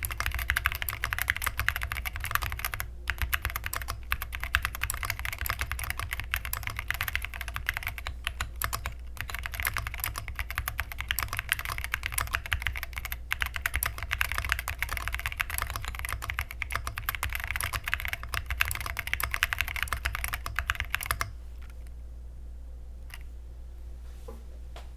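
Fast continuous typing on a 60% gasket-mount mechanical keyboard with TTC Silent Brown dampened tactile switches, a polycarbonate plate, PCB and case foam, and double-shot SA-profile keycaps. The typing stops about 21 seconds in, leaving a steady low hum and a couple of single keystrokes near the end.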